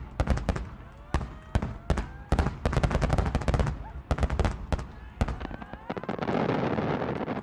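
Aerial fireworks going off: a rapid, irregular run of sharp bangs and pops, giving way about six seconds in to a dense, continuous crackle.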